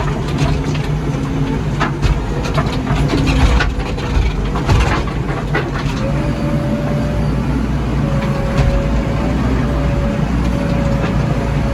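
Diesel engine of a JCB 3DX backhoe loader running steadily, with knocks and rattles over the first half; a thin steady whine joins about six seconds in.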